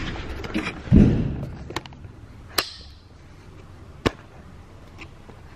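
A heavy thump about a second in, then two sharp single knocks a second and a half apart, over a low steady rumble.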